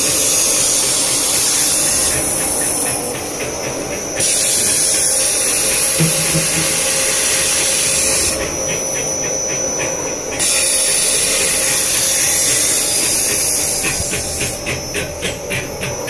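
Grid-cloth (fiberglass mesh) roll cutting machine running with a loud, steady hiss. Three times, for about two seconds each, the hiss thins out and a fast, even pulsing comes through.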